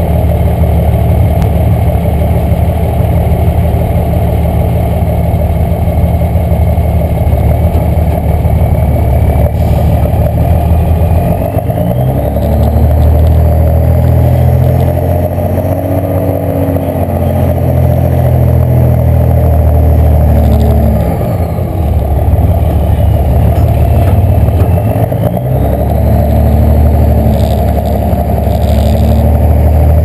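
Pickup truck's engine with a single stack exhaust, heard from the truck bed during a truck pull. It runs steadily at first. About twelve seconds in it becomes louder and deeper under heavy load as the truck pulls down the track, dipping briefly twice in the second half. A thin whistle rises shortly before the load comes on.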